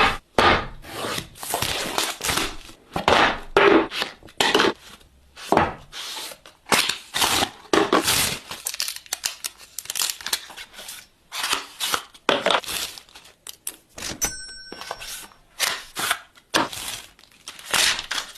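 Charger packaging being unboxed: plastic film and cardboard tearing, crinkling and rustling, with many short scrapes and clicks.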